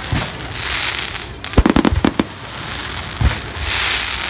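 Aerial fireworks bursting: a quick cluster of sharp bangs about a second and a half in, and another bang a little after three seconds, with a steady hiss between the bursts.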